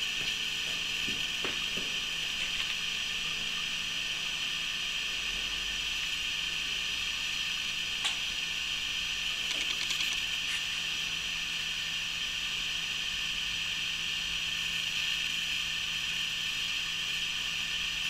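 Steady hiss of background noise, with a few faint clicks about a second in, at eight seconds and around ten seconds.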